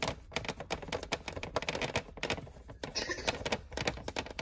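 Rapid, irregular clicking and tapping from a screwdriver and small screws being worked out of the plastic housing of a Big Mouth Billy Bass singing fish.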